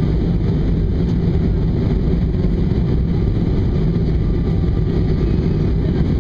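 Steady low cabin noise inside an Airbus airliner descending on approach: the jet engines and the airflow past the fuselage, heard through the cabin as an even, deep noise.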